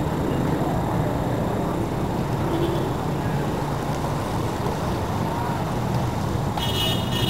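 Steady low rumbling background noise of an outdoor camcorder recording, with a brief higher-pitched sound near the end before it cuts off suddenly.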